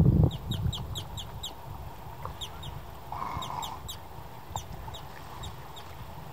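A bird calling off-screen in rapid runs of short, high, falling chirps, several a second, with a brief low rumble at the very start.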